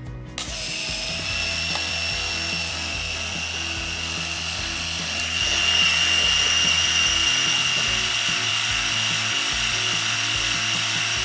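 Compact 35 mm film camera's small electric motor whining steadily as it rewinds the roll. About halfway through the whine steps up a little in pitch and gets louder. Quiet background music plays underneath.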